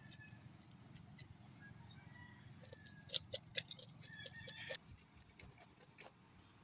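Faint scratching and clicking of a blade scraping scales off a small fish, with a quick run of scrapes in the middle.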